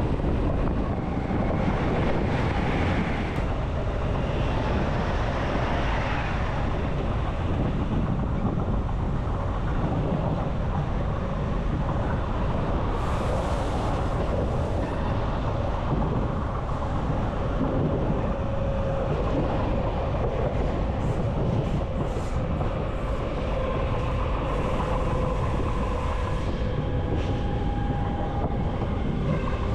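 ÖBB class 4024 Talent electric multiple unit running along the track, heard from the driver's cab: a steady rumble of wheels on rail, with faint steady tones in the second half.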